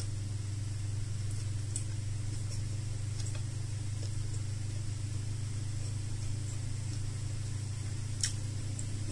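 Quiet eating by hand: faint scattered clicks of chewing and of fingers picking food off a plate, over a steady low hum. A sharper click stands out near the end.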